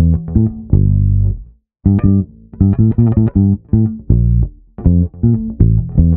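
Intro music carried by a plucked bass guitar playing a riff of short, punchy low notes. It breaks off briefly about one and a half seconds in, then starts again.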